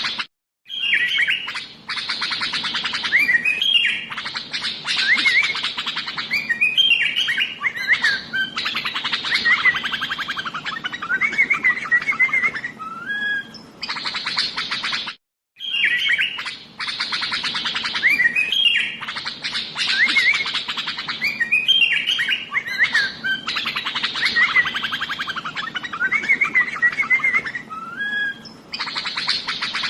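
Sooty-headed bulbul (kutilang) singing without pause: bubbly whistled phrases with short rising and falling notes over fast chattering trills. The same stretch of song repeats about every 15 seconds, with a brief dropout just before each repeat.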